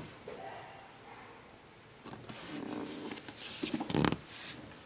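A cardboard shoebox being handled: a brief rustle, then a soft knock about four seconds in as the box is lifted and moved.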